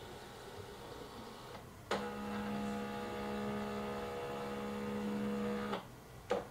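Canon all-in-one printer-scanner running a scan: a click about two seconds in, then a steady pitched motor hum for about four seconds as the scan head travels under the glass, stopping sharply, with another click near the end.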